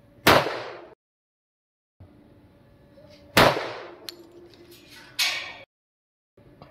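Semi-automatic pistol fired in slow, single shots: two sharp bangs about three seconds apart, then a third, quieter bang about two seconds later, each with a short ringing tail.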